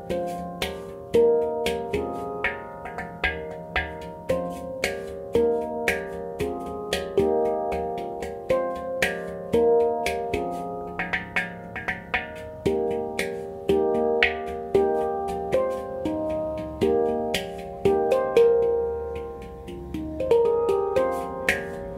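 Handpan tuned in F minor played with the hands: a steady stream of struck notes, several a second, each ringing on in overlapping tones.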